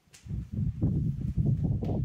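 Loud, irregular low rumbling on the camera microphone that starts suddenly a moment in.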